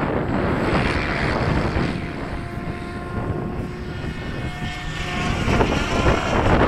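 SAB Goblin 700 electric remote-control helicopter flying, its motor and rotor blades giving a whine with several steady pitched tones.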